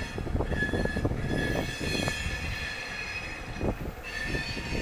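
Long Herzog gravel train moving slowly through the yard, its wheels squealing in steady high tones over a low rumble; the squeal sets in about half a second in, fades past the middle and comes back near the end.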